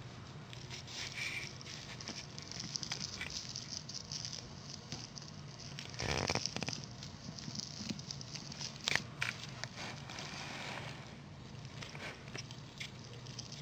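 Maltese puppies playing: scattered rustling, scratching and small clicks as they move about on carpet and in a fabric pet bed, with a louder stretch of rustling about six seconds in and a few sharp clicks around nine seconds, over a steady low hum.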